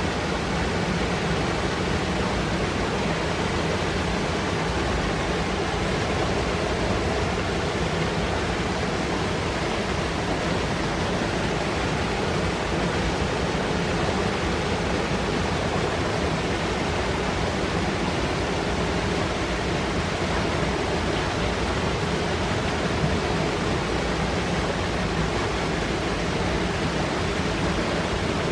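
A fast mountain river rushing and foaming over rocks: a steady, dense water noise with no break.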